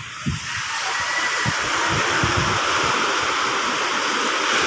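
Rough surf breaking and washing up a sandy beach: a steady rush of wave noise that swells about half a second in and holds, with a low, uneven buffeting of wind on the microphone underneath.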